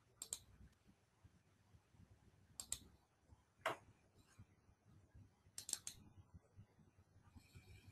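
Faint, scattered clicks of a computer mouse over near silence: one, then a quick pair, a single sharper click, and a quick run of three near the end.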